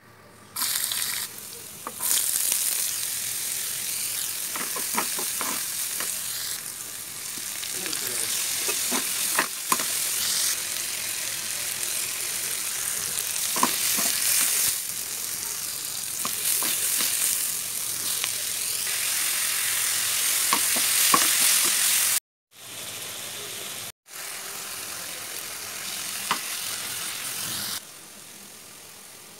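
Food frying in hot oil in a pan, a steady loud sizzle, with a spatula clicking and scraping against the pan as onions and tomatoes are stirred. The sizzle cuts out briefly twice about three-quarters of the way through and is quieter near the end.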